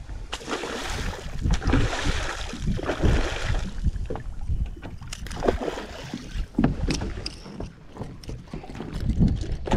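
Water sloshing and splashing around a small fishing boat, strongest in the first few seconds, with wind rumbling on the microphone and a few sharp knocks.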